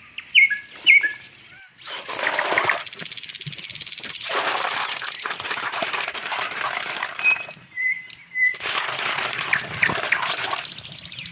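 Hands swishing and rubbing a potful of giant land snails in water: wet splashing with the shells knocking together, in two long stretches. A bird chirps a few times at the start, and a short whistle is heard in the pause between the two stretches of washing.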